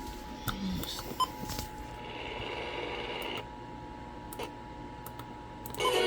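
A faint, steady electronic tone holding one pitch, with a few small clicks scattered through it. A louder burst of sound breaks in just before the end.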